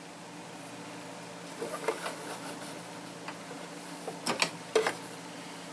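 Short clicks and fabric rustling as a garment is handled and positioned under a sewing machine's presser foot. There are two small clusters, about two seconds in and again between four and five seconds, the later one louder, over a steady faint hum.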